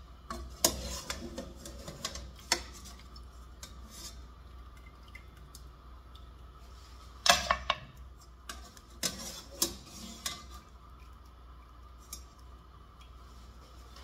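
Metal spoon knocking and clinking against pot and pan as boiled chicken pieces are scooped and dropped into a frying pan: scattered sharp knocks, with a quick cluster of several about seven seconds in.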